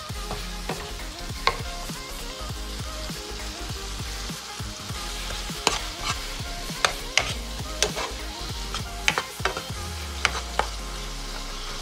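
Diced tomatoes and onions sizzling in oil in a frying pan as they are stirred with a wooden spoon. There is a steady sizzle with sharp knocks of the spoon against the pan, most of them in the second half.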